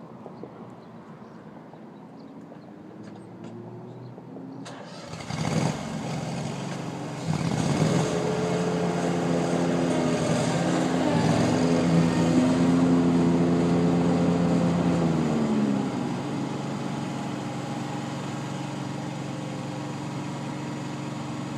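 A riding lawn mower's engine starts about five seconds in, comes up to a steady higher speed, then drops back to a lower steady speed about three-quarters of the way through.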